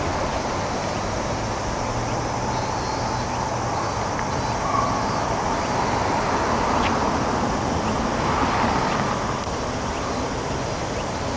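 Chorus of cicadas, Japanese min-min cicadas and large brown cicadas, over a steady rumble of city road traffic. The chorus swells a little in the middle.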